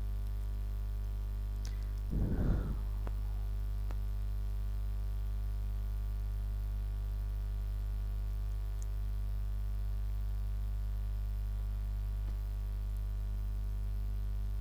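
Steady low electrical hum from the recording chain, made of several even tones. A brief, louder muffled sound comes about two seconds in, with a few faint clicks.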